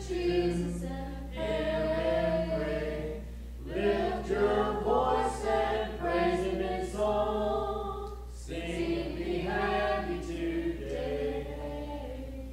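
Several voices singing a hymn a cappella in harmony, with no instruments, in sustained phrases separated by short breaths. The singing eases off and dies away near the end, as the hymn finishes.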